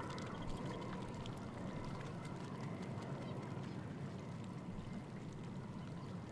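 Ducks calling and chattering over a steady outdoor background hiss.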